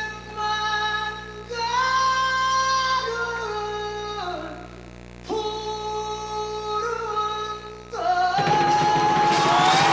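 Live music: a high singing voice holding long, wordless notes that slide between pitches, in phrases with short pauses between them. About eight and a half seconds in, a loud, dense wash of sound comes in under a held note.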